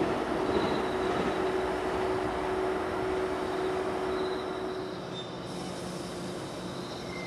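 Electric train running on the rails through the station, a dense rumble with a steady whine. It fades and quietens about five seconds in.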